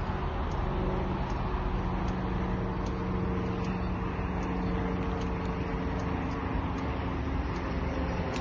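Steady rumble of a slow road train of towed vehicles rolling over grass, with a low engine hum and a faint, regular ticking about twice a second.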